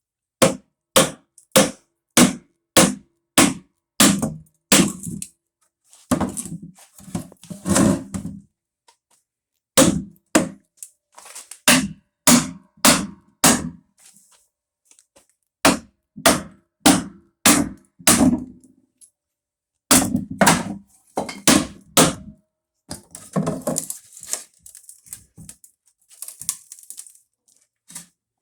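Wooden wedges being hammered into a wooden pallet to split the planks off the stringers: runs of sharp knocks, about two a second, broken by short pauses. Near the end the knocks give way to softer scratchy noises.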